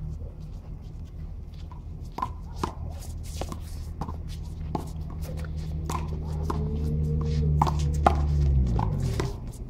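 Handball rally: the rubber ball smacks sharply and irregularly, about a dozen times, off players' hands, the concrete wall and the floor, with shuffling sneaker footsteps. Under it a low hum grows louder and then falls in pitch near the end.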